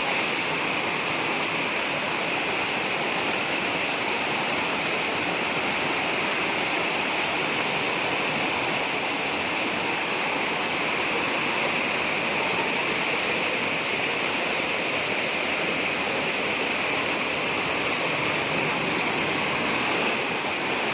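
Waterfall splashing into its pool, a steady unbroken rush of falling water.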